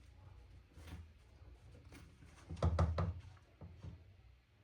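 Small knocks and clicks of a tool and parts being handled on an airsoft rifle during disassembly, with the loudest cluster about two and a half to three seconds in.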